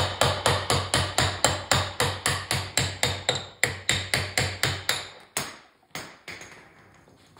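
Rapid, evenly spaced hammer blows, about three and a half a second, driving the crankshaft bearing out of a Super Rhino 2 engine's side cover. The blows stop about five seconds in, and two or three weaker knocks follow.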